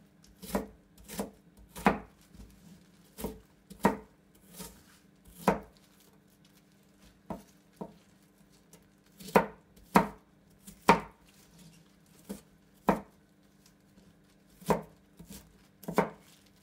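Chef's knife dicing an onion on a plastic cutting board: separate, uneven knocks of the blade on the board, about one or two a second with short pauses.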